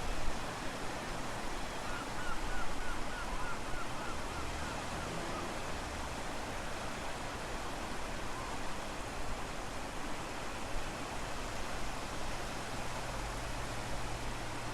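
Sea surf washing ashore, a steady rush of breaking waves. About two seconds in comes a quick run of about eight short high chirps.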